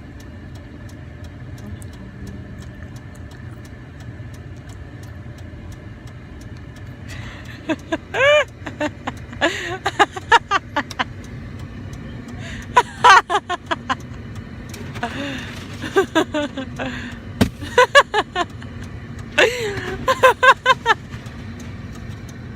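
A car running steadily at idle, with faint regular ticking. From about seven seconds in, short, loud bursts of a person's voice come again and again.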